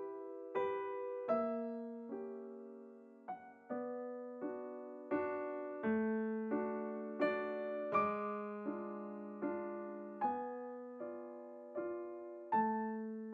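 Background piano music: a slow, gentle melody of single notes and soft chords, each note struck and left to ring and fade.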